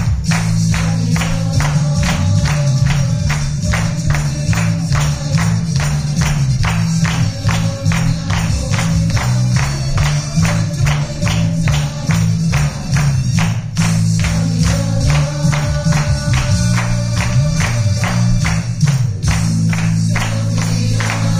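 Upbeat dance music with a fast, steady beat of about two to three strokes a second over a heavy bass line.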